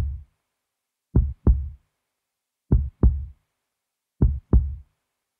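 Slow heartbeat sound effect: deep double thumps, lub-dub, about every second and a half, with silence between.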